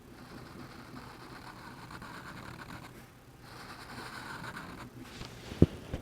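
Sharpie marker scratching over drawing-pad paper in stretches of colouring-in strokes, pausing briefly twice. A single dull thump sounds near the end.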